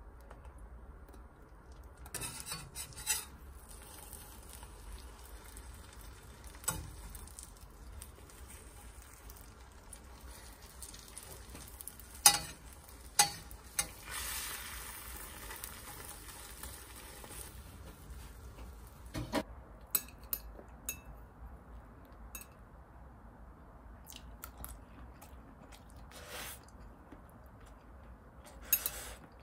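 Food sizzling in a frying pan, with utensils clinking against the pan and dishes now and then. The sizzle stops about two-thirds of the way through, leaving scattered clinks.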